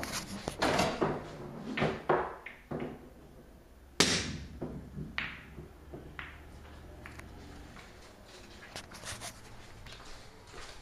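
Pool balls clicking against one another and knocking on the table during a shot, several clicks in quick succession at first, with one sharp, loud ball-on-ball click about four seconds in, then a few fainter knocks.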